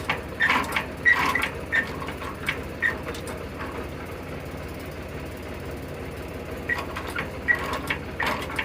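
Engine idling steadily with a low, even rumble, with a few light metallic clicks in the first few seconds and again near the end.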